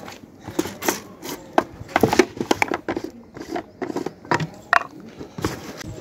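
Plastic grain jar being handled: its screw lid twisted off and grain rattling inside as a hand reaches in to scoop it. The sound is a run of irregular clicks and rattles.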